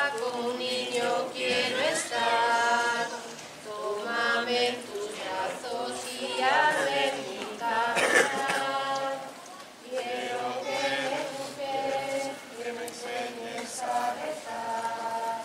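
A group of people singing a hymn together without accompaniment, in held notes that change step by step.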